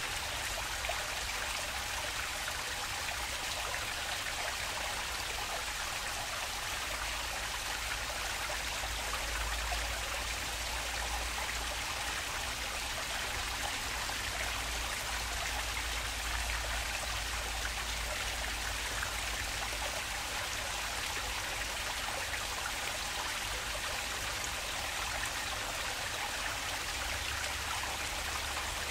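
Water flowing steadily in a stream: an even, unbroken rushing hiss, with a low rumble underneath.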